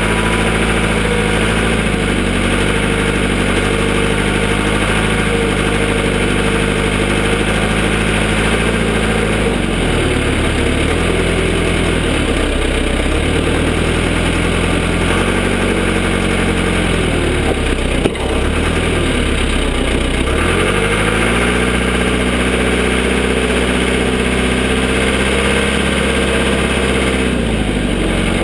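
Cat 416 backhoe's diesel engine running steadily, its pitch sagging and recovering several times as it works. There is a single short knock about two-thirds of the way through.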